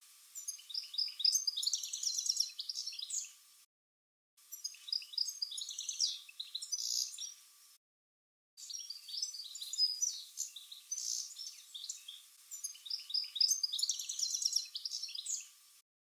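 European goldfinch singing: a trilling song of chattery notes mixed with liquid, slurred, sweet and sometimes harsh calls, in three bouts broken by short silent gaps about 4 and 8 seconds in.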